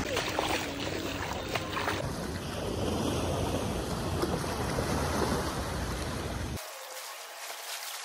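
Small sea waves breaking and washing up a sandy beach, a steady surf hiss with wind buffeting the microphone. A few light knocks come in the first couple of seconds, and the sound changes abruptly about two seconds in and again near the end.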